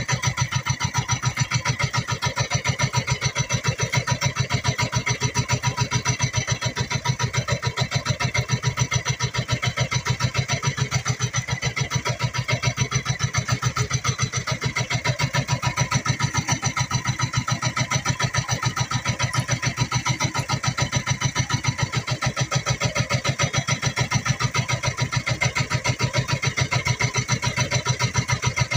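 Engine aboard an outrigger fishing boat running steadily with a fast, even chugging.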